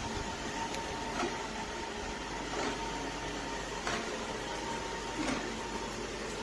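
Shark ION R75 robot vacuum running: a steady motor hum with a thin steady whine, and a few light clicks and taps along the way.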